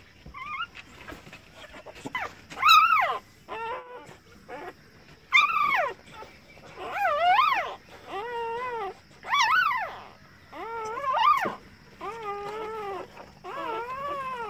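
Dog whimpering: a run of about ten high, rising-and-falling whines, roughly one a second, some louder than others.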